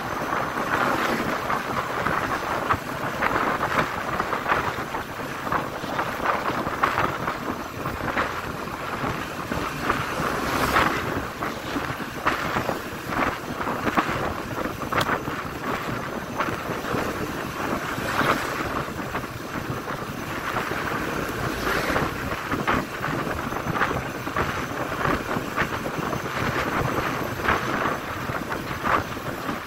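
Wind rushing over the microphone of a moving motorcycle, coming in uneven gusts, with the general noise of riding at speed underneath.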